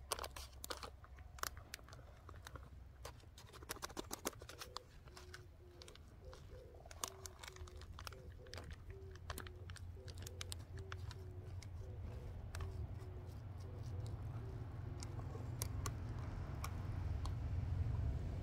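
Close-up eating sounds: chewing and crunching, with many sharp clicks of a wooden spoon scraping and tapping in a ration pouch. Underneath is a low rumble that grows louder toward the end.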